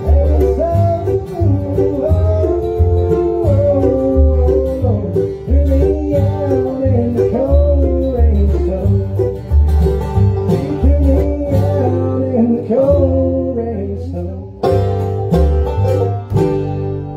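Bluegrass band playing live: banjo rolls, mandolin, acoustic guitar and upright bass over a steady bass beat. There is a brief break about three-quarters of the way through, and the tune winds down near the end.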